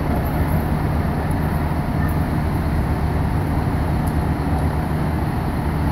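Pumper fire engine's diesel engine running steadily to drive its fire pump while it pumps water supplied from a hydrant: a loud, even drone.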